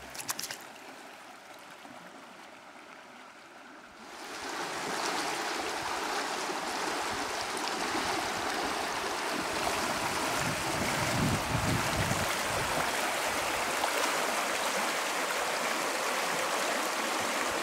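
Shallow river rapids: water rushing steadily over riffles. The rushing is fainter at first and grows louder about four seconds in.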